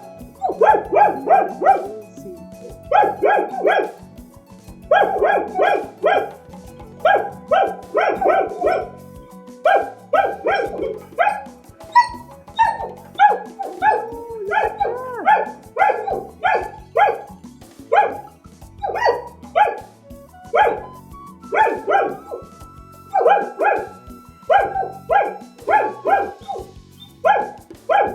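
Collies barking over and over in quick runs of three or four barks, with short breaks between the runs.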